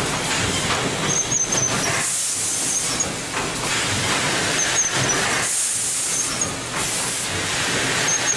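Automatic bag-packing machine running, a steady mechanical din. Two bursts of air hiss come about two seconds in and again around six seconds, with short high squeaks now and then.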